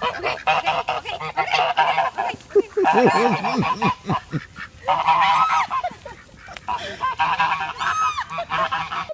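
Domestic geese honking in quick runs of repeated calls, several birds at once, broken by a few short pauses.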